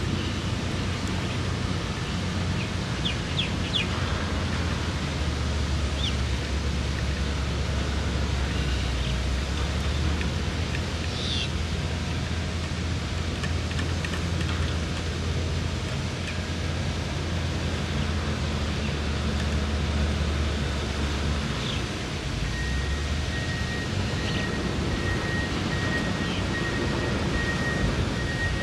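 Outdoor ambience: a steady low rumble under an even hiss, with a few short bird chirps about three seconds in and again now and then. The rumble drops away about three-quarters through, and a faint thin high tone comes in.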